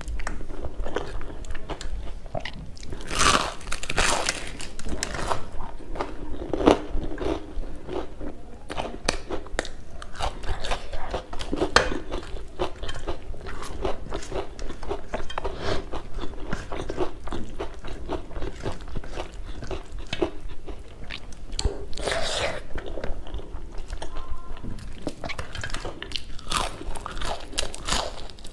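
Close-up chewing and crunching of food eaten by hand: rice with dry pea curry and crisp battered chive fritters, with a few louder crunchy bites.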